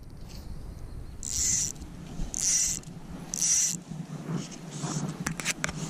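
Fly line stripped off a fly reel in three pulls, each a short zipping buzz about half a second long, followed by a few quick light clicks.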